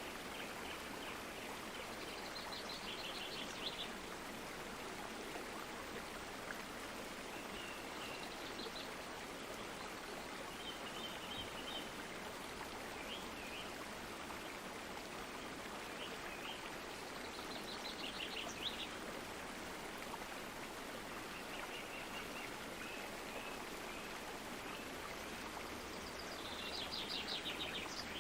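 Stream water running steadily, with birds calling now and then over it: several quick trilled phrases and scattered short chirps.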